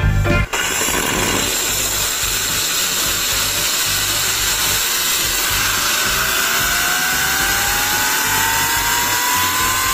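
Small homemade steam turbine running on steam, driving a DC motor as a generator: a loud steady hiss, with a whine that climbs steadily in pitch from about six seconds in as the turbine speeds up. Background music cuts off about half a second in.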